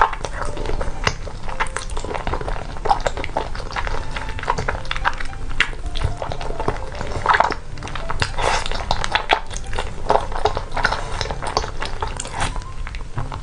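A person slurping and chewing thick sweet-potato starch noodles (fen haozi) in a thick spicy sauce: a steady run of wet sucking, smacking and clicking mouth sounds.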